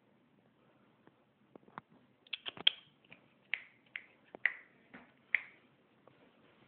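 A string of sharp clicks and taps, bunched from about two seconds in to past the halfway point, as a small dog paws and scrabbles with its claws against a hard surface.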